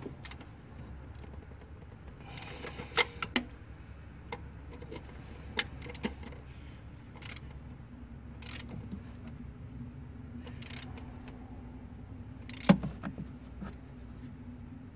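Scattered metallic clicks and rustling as bolts are put back in by hand to fasten a new EGR valve, with the sharpest click late on, over a steady low hum.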